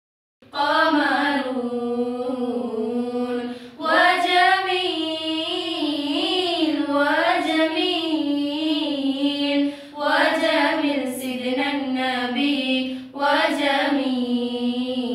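Four girls singing a nasheed together in unison, starting about half a second in. The melody runs in long phrases broken by short pauses for breath about four, ten and thirteen seconds in.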